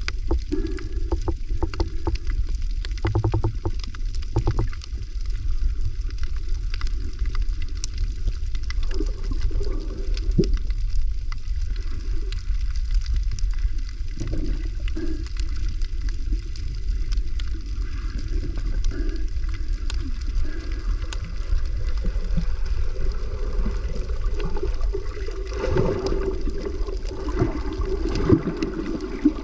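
Moving water with a steady low rumble and scattered faint clicks and crackles, with louder swishing near the end.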